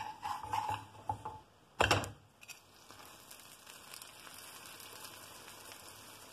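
A grilled cheese sandwich flipped over in a nonstick frying pan, landing with one sharp knock about two seconds in. The freshly buttered side then sizzles steadily against the hot pan.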